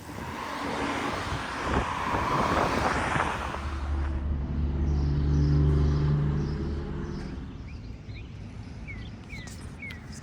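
A road vehicle passing: a rush of tyre and wind noise for the first few seconds, then a low engine drone that fades away. A few short bird chirps near the end.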